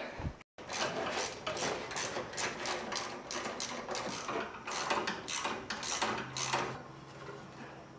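Ratchet wrench clicking in quick repeated strokes, about three a second, as the engine mounting bolts on an old riding mower are undone.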